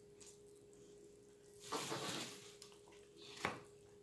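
Close-miked eating of a brisket salad: a loud crunchy burst of just under a second about two seconds in, and a single sharp click of a fork against the food container near the end. A faint steady hum runs underneath.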